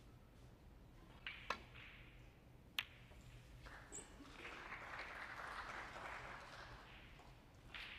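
A snooker cue tip strikes the cue ball about a second and a half in, and a sharp ball-on-ball click follows just over a second later. The audience then applauds for about three seconds.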